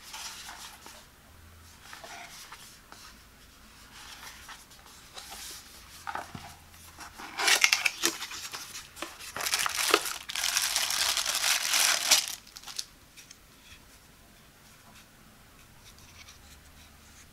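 Hands handling a paperboard product box: soft rubs and flap sounds at first, then loud rustling and crinkling of packaging for about five seconds from about seven seconds in, as the contents are drawn out. After that, quieter handling of the bottle's plastic lid.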